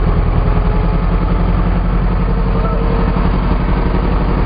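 A small river boat's engine running steadily at a constant pitch, heard from on board.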